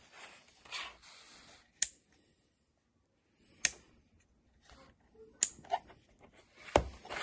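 A small rocker ON/OFF switch on a battery-powered bench power supply clicked four times, with soft handling rustle of the plastic housing in between.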